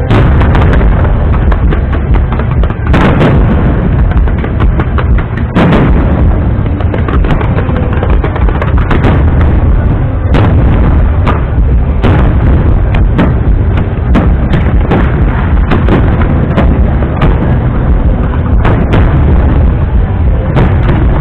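Aerial fireworks exploding one after another in a dense barrage of booms and sharp bangs, loud throughout.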